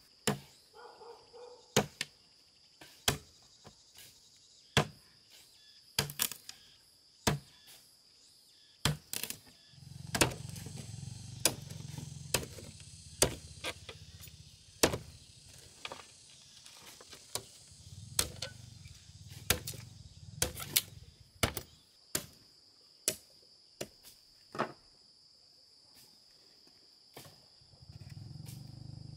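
A hand tool striking repeatedly with sharp, irregular blows, roughly one every second or so, over a steady high insect drone. A low rumble swells and fades a few times.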